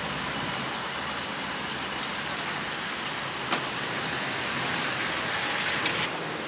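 Street traffic: steady road noise of passing cars and a pickup truck. There is one sharp click a little past halfway and a few fainter clicks near the end.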